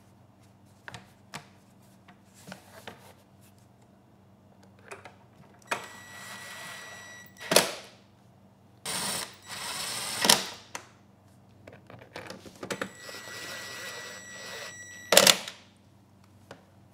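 A cordless drill-driver runs three times in short spells, each a steady whine ending in a sharp loud click, as it drives the screws fastening the generator's carry handle. A few light knocks come before the first run, from the handle being fitted.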